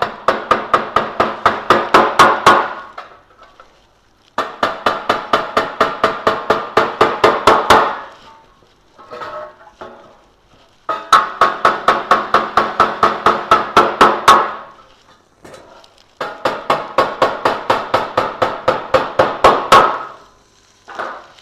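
Hammer rapidly tapping the tabs of a galvanised steel sheet feeder to bend them over and lock the roof in place, the thin steel ringing with each blow. Four runs of quick, even taps, about five a second, each run growing louder, with short pauses between.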